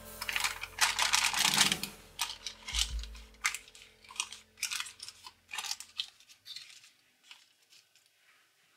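Parchment paper rustling and crinkling as a folded paper drop lid is pressed down onto liquid in a pan, dense at first and thinning to a few scattered crackles by about six seconds in. A low thump about three seconds in.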